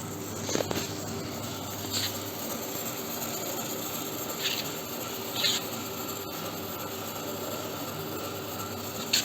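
JJK carton strapping machine running: a steady hum with short hissing bursts at irregular intervals, about five in all, the loudest near the end.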